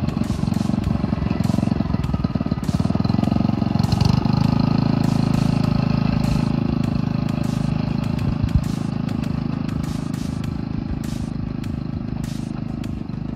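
Small engine of a 10¼-inch gauge rail auto truck running as it trundles along the track, with irregular clicks and clatter from the wheels on the rails. Loudest about halfway through as it passes close, then gradually fading as it moves away.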